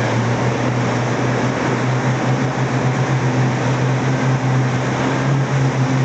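Motorboat's outboard motor running at a steady speed, a constant low hum over a steady rushing hiss of water and wind.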